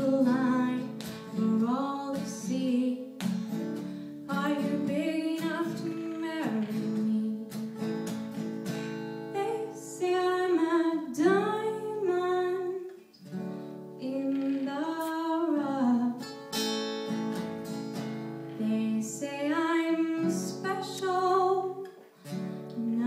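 A woman singing a slow melody with held, gliding notes over guitar accompaniment.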